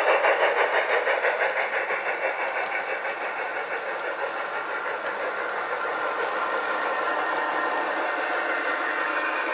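Garden-scale model trains passing. The 2-truck Shay logging locomotive chuffs about three times a second, fading as its log cars roll by, and a steadier running sound from the Dash 9 diesel model builds in the second half, along with wheels rolling on the rails.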